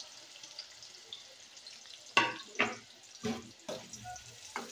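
Sliced onions sizzling quietly as they fry in hot oil in a metal kadai. From about two seconds in, a perforated metal skimmer stirs them, knocking and scraping against the pan about five times.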